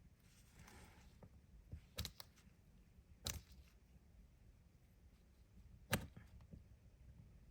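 A few sharp small clicks and taps of a tool working at a glued-on plastic nail tip, with a soft brief rustle in the first second.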